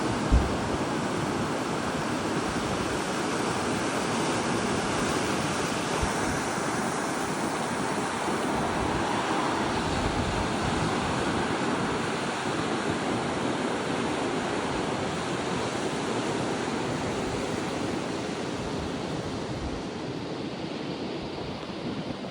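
Ocean surf and strong wind, a steady rushing noise, with gusts buffeting the microphone now and then, hardest just after the start.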